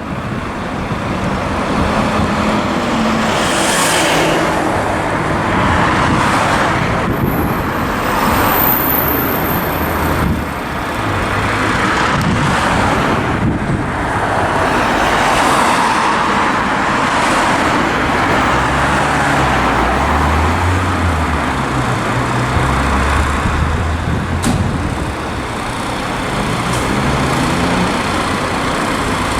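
Road traffic noise: motor vehicles driving past, swelling and fading several times over a steady rumble.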